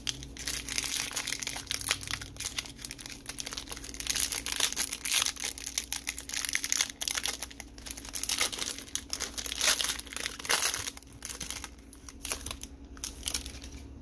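Crinkling and tearing of a Bowman baseball card pack's wrapper as it is torn open, with dense crackling that thins to scattered light ticks near the end as the cards are slid out and handled.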